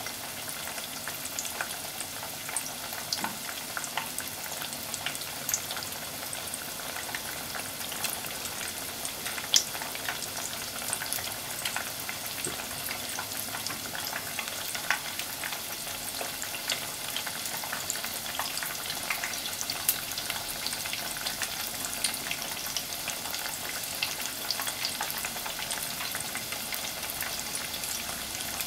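Breaded pork cutlet deep-frying in hot oil in a pot: a steady sizzle with many small crackling pops and one sharper pop about ten seconds in.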